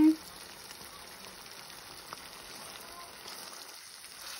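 Faint, steady sizzle of broccoli datsi (broccoli stewed in a cheese sauce) cooking in a pan, with one small pop about two seconds in.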